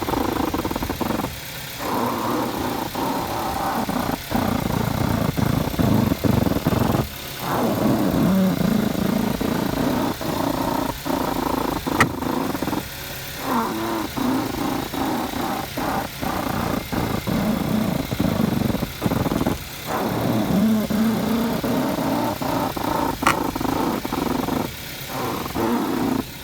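Volkswagen Jetta running, its engine note rising and falling, recorded to catch a knock in the car. Two sharp clicks stand out, a loud one about halfway through and a fainter one near the end.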